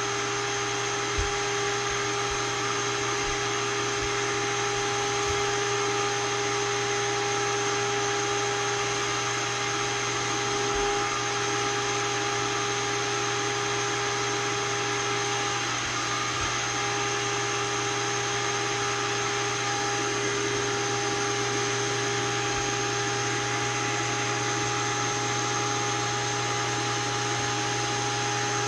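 Steady hum and rush of a small electric vacuum motor, the Seamer Down Now seaming tool running with no change in pitch or level.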